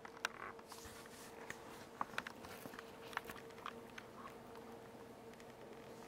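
Faint clicking and smacking mouth sounds from a 7-week-old baby, a handful of short sharp clicks scattered through, over a steady faint hum.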